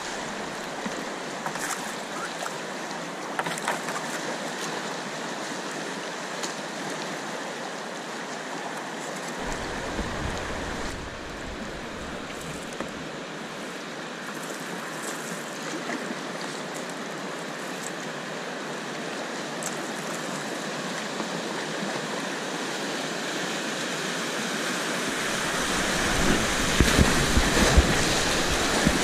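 Rushing river water around a whitewater kayak, with occasional sharp splashes from the paddle. Near the end it grows louder, with a deep rumble, as the boat runs into foaming white water.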